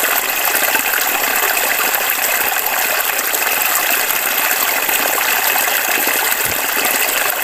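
Small, shallow stream running steadily over gravel and stones.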